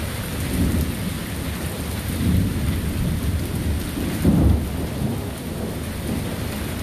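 Thunder rumbling low in several swells, the strongest about four seconds in, over steady rain.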